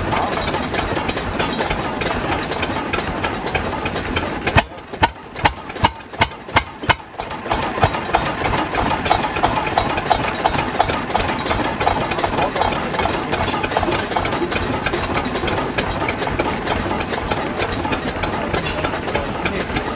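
Single-cylinder Deutz stationary diesel engine running just after a cold start, with a steady rushing noise over it. About a quarter of the way in, the rushing drops out for a couple of seconds and the engine's separate firing knocks, about two and a half a second, stand out clearly before the steady noise returns.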